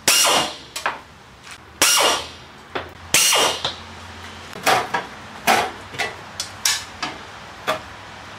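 A handheld power screwdriver runs in three short bursts of about half a second each, backing three Phillips screws out of a Firepower FP90 MIG welder's sheet-metal case. A run of lighter knocks and clicks follows as the side panel is worked loose.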